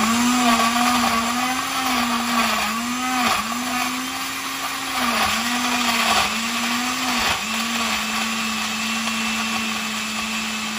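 Small countertop blender running, blending ice, berries, banana, ice cream and almond milk into a smoothie. Its motor hum dips in pitch again and again for the first seven seconds or so while the mix is still chunky, then runs steady as it turns smooth.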